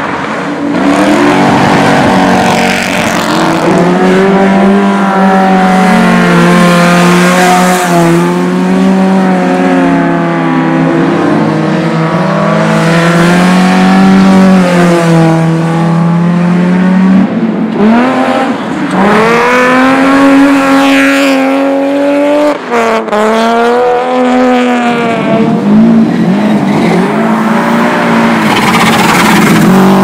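Rally car engines driven hard on a dirt track, revving up and down repeatedly as the cars accelerate and lift through the corners, one car after another. About seventeen seconds in, the engine note changes abruptly to a different car's engine.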